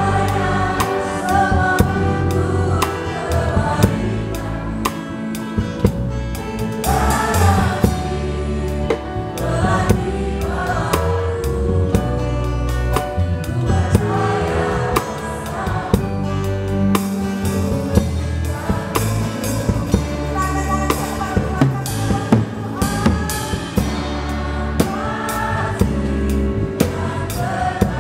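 Live church worship band playing a praise song, with women singing the melody into microphones over keyboard and guitar. A drum kit played close by gives frequent sharp hits.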